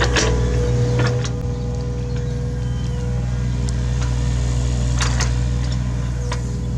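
Hitachi Zaxis 33U mini excavator's diesel engine running steadily while it works, with a few sharp clanks, the loudest about five seconds in.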